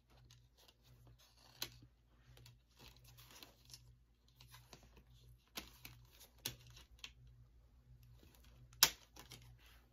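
Quiet handling of DVD cases and discs: faint rustling and a few sharp plastic clicks, the loudest click near the end, over a faint low hum.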